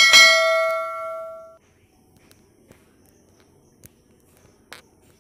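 Notification-bell chime sound effect strikes once and rings out, dying away over about a second and a half. A faint hiss with a couple of soft clicks follows.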